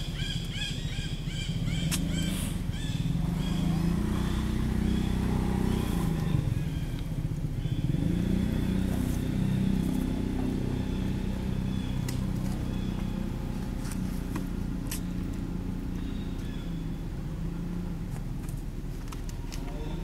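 A passing vehicle engine: a low hum that swells over several seconds, then slowly fades.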